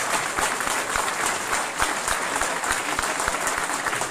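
Audience applauding, many hands clapping at an even, steady level.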